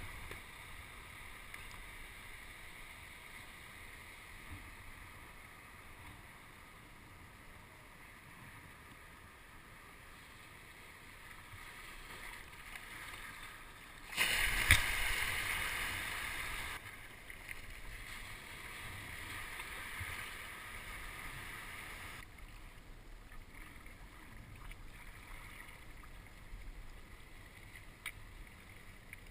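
Kayak out on the water: faint water sounds from the paddle and the hull. About halfway through, a louder rushing noise starts suddenly, lasts about two and a half seconds, then fades away.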